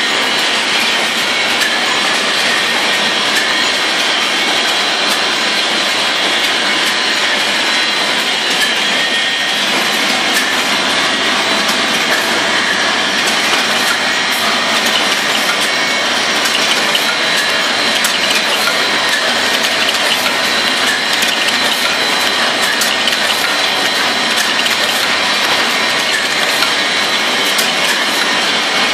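Automatic wire coat hanger forming machine running: a steady, loud mechanical clatter with many fast fine clicks as the forming head bends and twists steel wire into hangers.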